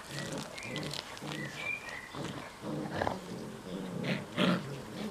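Dogs growling in rough play as an adult standard poodle wrestles a black puppy: low growls in short bouts, with a louder, sharper cry about four seconds in.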